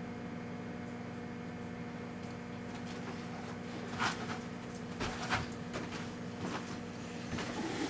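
Microwave oven running with a steady electrical hum, while the toner cartridge burning inside gives off irregular sharp crackles and pops, starting about three seconds in.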